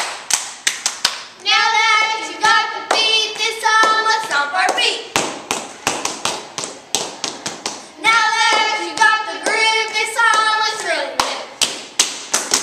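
Two girls chanting a cheer in unison in two sing-song phrases, over a steady rhythm of sharp hand claps and stomps that keeps going between the phrases.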